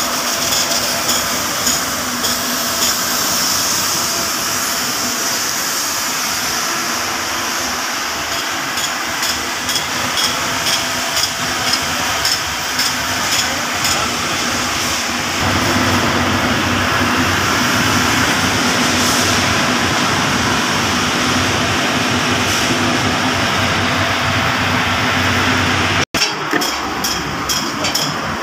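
Boatyard work noise: steady mechanical noise with frequent short, sharp metallic knocks. The background gets deeper and heavier about halfway through.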